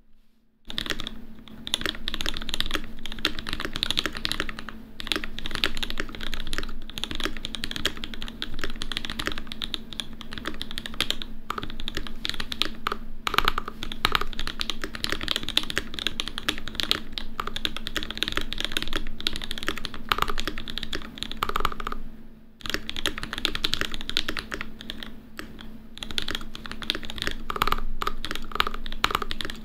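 Fast continuous typing on an Ikki68 mechanical keyboard with lubed and filmed C3 Tangerine linear switches and GMK keycaps: a dense stream of key clacks, with a short pause about two-thirds of the way through.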